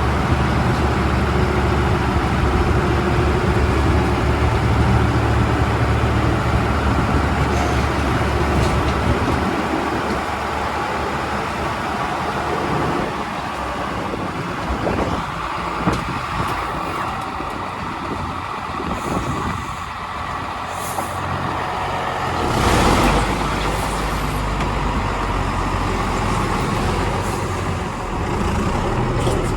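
Heavy diesel engine running with a deep, steady rumble that drops away about a third of the way in. About two-thirds through comes a short hiss of air.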